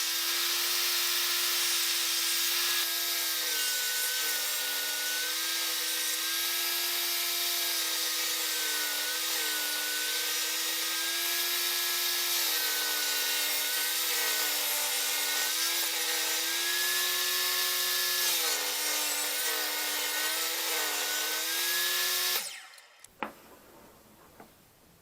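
Bench circular saw running and cutting wood. Its motor note sags and recovers again and again as the blade takes load, and the sound cuts off abruptly about 22 seconds in.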